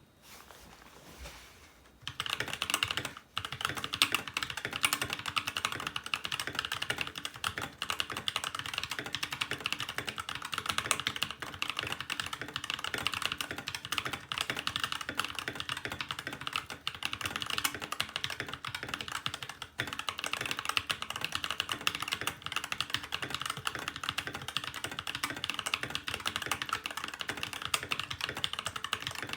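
Continuous fast typing on a MageGee Star61 60% mechanical keyboard with tactile fake Holy Panda switches, ABS keycaps, a tape mod and case foam: a dense stream of keystroke clacks starting about two seconds in.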